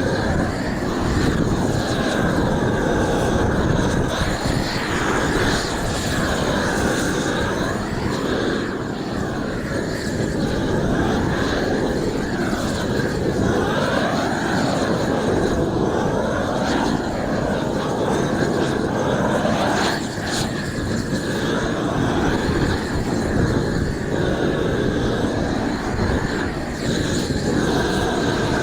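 Propane roofing torch burning steadily while torch-on roll roofing is heated and rolled out, with slow sweeps in pitch through the noise.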